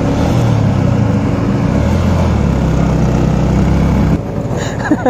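Motorcycle engine running at low revs. Its note shifts about two seconds in, and it stops about four seconds in. A few short high chirps follow near the end.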